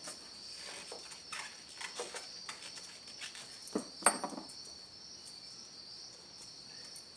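Crickets chirping steadily in the background, with scattered light clicks and taps of hands working a coil and its screw at the engine, the loudest two just before and just after four seconds in.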